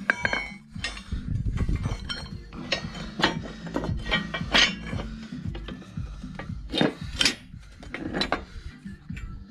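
Steel spring leaves clinking, knocking and scraping against each other as an extra leaf is laid onto a UAZ Bukhanka rear leaf-spring pack and shifted into line. The contacts come as a string of irregular sharp metal knocks.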